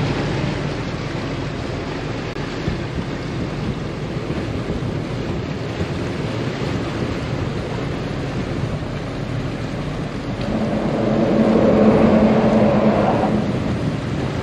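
Motor yacht under way: a steady engine rumble with water rushing along the hull and wind buffeting the microphone. About ten seconds in, a louder hum swells for a few seconds and fades again as the boat passes under a bridge.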